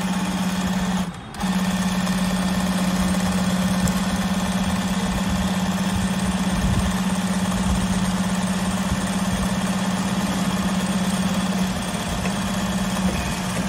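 JAGKING 5330D direct-drive sewing machine running at a steady speed, stitching along a zipper on a leather strip. It stops for a moment about a second in, then runs on, a little quieter near the end.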